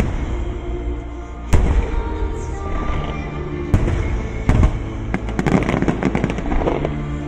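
Aerial fireworks bursting: single sharp bangs about a second and a half in and near four seconds, then a rapid crackling flurry from about five to nearly seven seconds, with music playing underneath.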